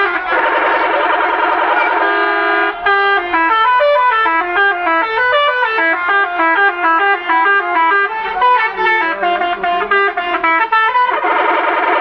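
Bus telolet horn, a set of multi-tone air horns playing a tune: a long held chord, then a quick melody of stepping notes, then a held chord again near the end.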